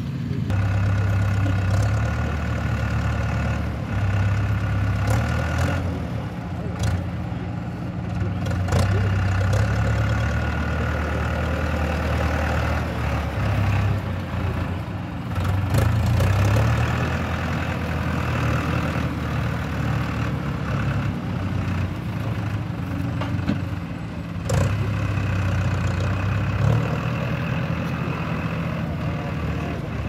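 Tractor diesel engine running as it pulls a mounted plough across the grass, its note swelling and easing several times, with a few short knocks.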